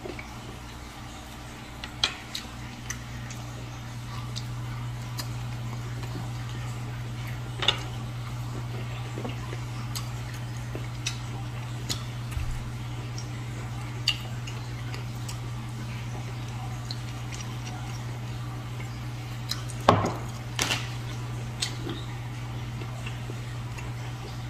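A person eating at a table: scattered short clicks and taps of dishes and food being handled, with a cluster of louder knocks about twenty seconds in, over a steady low hum.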